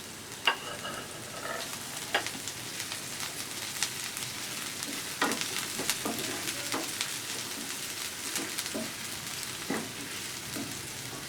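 Finely chopped onion and green chilli sizzling in hot soybean oil in a frying pan, with a steady hiss, while a spatula stirs them, knocking and scraping against the pan now and then.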